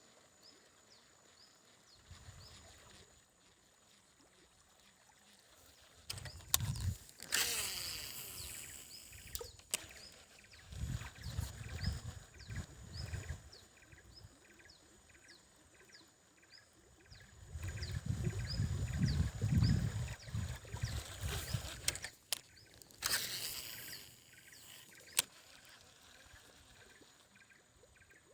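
A small animal chirping steadily, one short high call about every second, with two loud whooshing swishes, one about a quarter of the way through and one near four-fifths, and bursts of low rumble in between.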